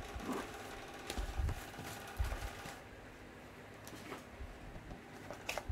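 Boxed items being handled and moved in a cardboard carton: irregular rustling with light knocks and clicks, and a couple of dull thumps in the first half.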